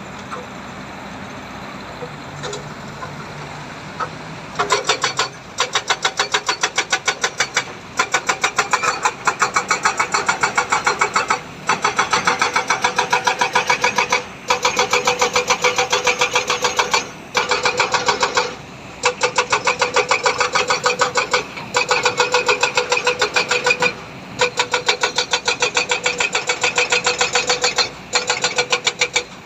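A machine running with a fast, regular clatter that stops briefly every few seconds and starts again. The first few seconds are a steadier, quieter mechanical noise.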